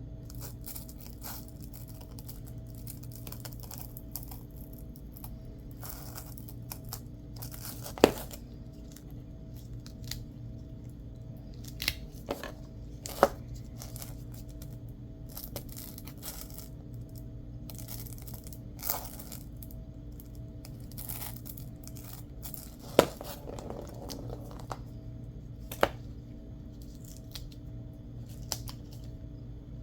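Hands at work on small craft materials: scraping and rustling on and off, with several sharp knocks and taps, the loudest about eight and twenty-three seconds in, over a steady low hum.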